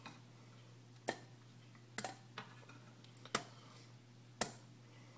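Frozen strawberries dropped one at a time into a blender jar: five separate hard clicks and knocks about a second apart, over a faint steady low hum.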